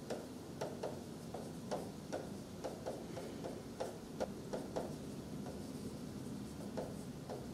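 Stylus tapping and clicking against a screen while words are handwritten: irregular light clicks, a few per second, thinning out in the second half, over a faint steady room hum.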